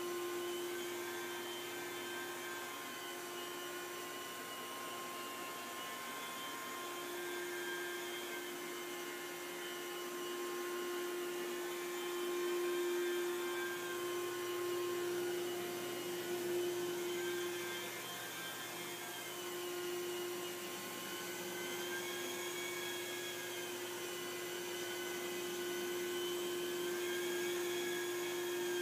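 Vacuum motor of a rotary carpet-extraction machine running steadily as it is worked over carpet: a constant motor whine, with higher tones that rise and fall every few seconds.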